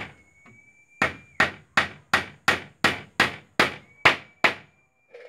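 Hammer blows on a bamboo wall rail: one blow at the start, then after a short pause a steady run of about ten blows, roughly three a second, stopping about a second before the end.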